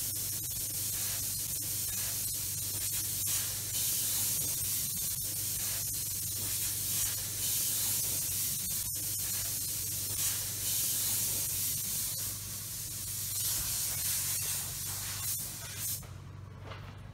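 A steady hiss, strongest in the treble, over a low steady hum; it cuts off sharply near the end.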